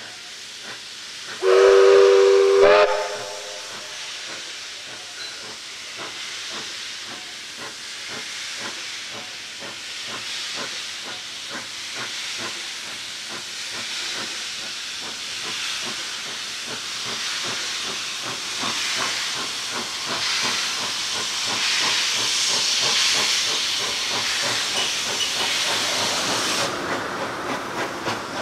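NSW C32-class steam locomotive 3237 gives one short whistle blast about two seconds in, then works steadily towards the listener, its rapid exhaust beat and steam hiss slowly growing louder.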